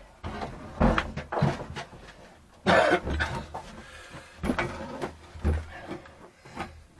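Irregular knocks, clunks and rustling from hands handling a steel heating pipe and a gas-welding torch, with a louder sudden noise about three seconds in.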